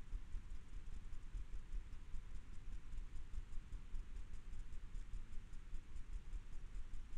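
Low, fluctuating rumble of outdoor background noise, with a faint, even series of high ticks joining about two seconds in.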